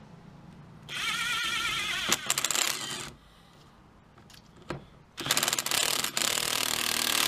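Cordless electric ratchet driving the screw of a worm-gear hose clamp on a charge-pipe coupler, in two runs. The first, about a second in, is a wavering motor whine that ends in a quick burst of clicking; the second, from about five seconds in, is a longer, noisier run.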